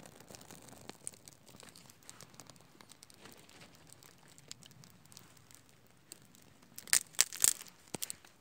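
Dry birch bark crinkling faintly and crackling as it is handled and starts to burn on a pile of split kindling. About seven seconds in comes a short cluster of loud, sharp crinkling sounds.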